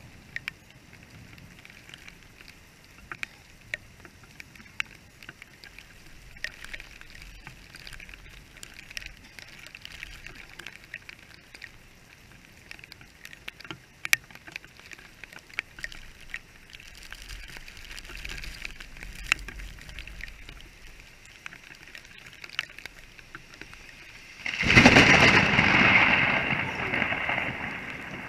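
Steady rain, with drops ticking sharply on the camera housing. About 24 seconds in comes a sudden loud thunderclap that rumbles away over a few seconds.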